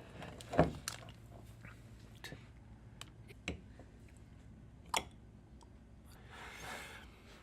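People chewing and tasting food, with scattered small mouth clicks and knocks, a thump about half a second in, and a soft rushing noise near the end.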